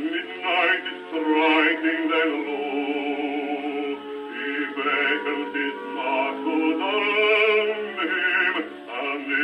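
Bass voice singing with wide vibrato from a 1923 Columbia 78 rpm disc, played on a Columbia 113a portable wind-up gramophone. The sound is thin, with no deep bass and no high treble.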